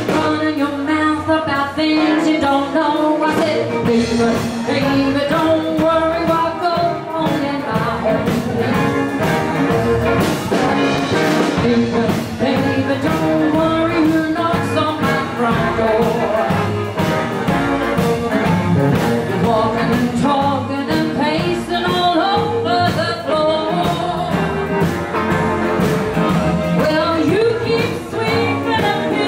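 Live rock and roll band playing with a steady drum beat, a woman singing lead over electric and acoustic guitars and upright double bass.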